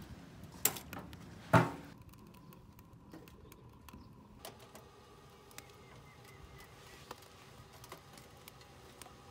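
Two sharp metallic clacks from a homemade sheet-metal wood stove as a gloved hand works its front panel, the second louder and briefly ringing; then faint scattered ticks and light taps.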